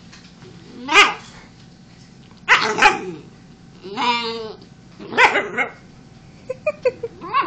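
A dog barking, about four sharp barks with one longer, wavering call in the middle and a quick run of short yips near the end. The dog is objecting to a cat lying right beside it.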